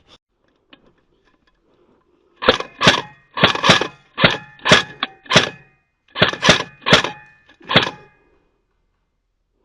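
Airsoft gun firing about a dozen single shots in quick, uneven succession, starting a couple of seconds in and stopping about two seconds before the end; each shot is a sharp crack with a brief metallic ring.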